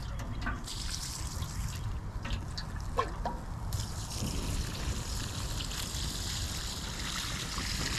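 Water trickling from a watering can's spout onto a small gasoline fire burning on grass, the splashing stronger from a little before halfway, over a steady low rumble.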